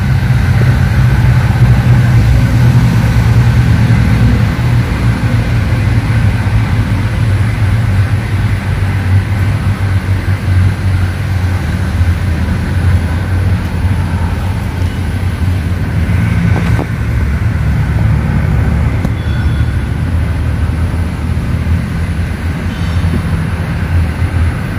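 A steady low engine rumble, like a motor vehicle running, with a faint high steady tone above it and a single light click about two-thirds of the way through.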